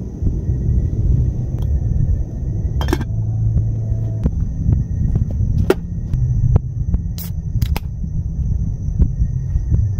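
Camp cooking sounds over a low steady rumble: a metal lid set onto a small aluminium camping pot with a clink about three seconds in, a few light clicks, and two sharp cracks late on as a beer can's tab is pulled open.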